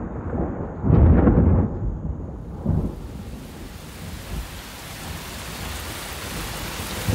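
Thunderstorm: a low rumble of thunder about a second in, the loudest sound, and a shorter rumble near three seconds. After that comes the steady hiss of falling rain.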